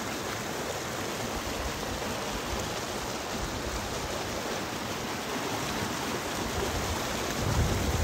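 Shallow river rushing over boulders and rocks, a steady rush of water, with a few low thumps near the end.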